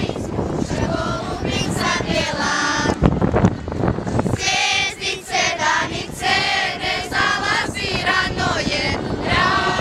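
A group of girls singing a folk song together, the singing much clearer and louder from about halfway through. Wind buffets the microphone in the first half, and there is one sharp knock about three seconds in.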